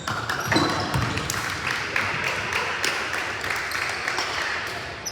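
Basketball game in a gym: a ball bouncing on the court, with scattered sharp knocks over a steady background of crowd voices.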